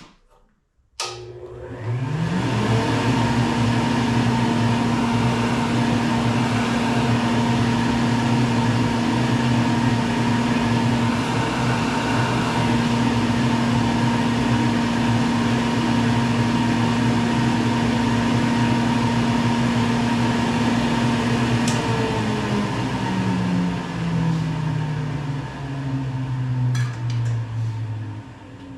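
Compact grinding-dust collector switched on with a click, its fan motor spinning up to a steady hum and whine. It runs steadily for about twenty seconds, then is switched off and winds down, its pitch falling.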